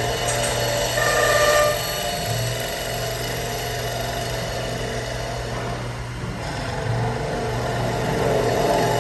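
CNC wood lathe running while it turns a wooden cup: a steady motor hum with cutting noise over it, and a brief higher whine about a second in.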